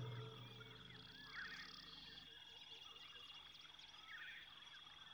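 Faint wild savanna ambience: a few bird calls, about a second and a half in and again about four seconds in, over a steady high-pitched drone. The tail of a music cue dies away at the start.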